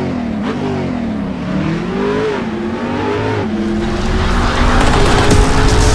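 Sports car engine revving, its pitch rising and falling again and again, then holding a steadier, higher note that grows louder near the end.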